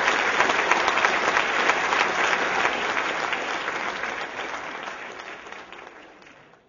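Theatre audience applauding, a dense patter of clapping that holds steady for a few seconds and then fades away near the end.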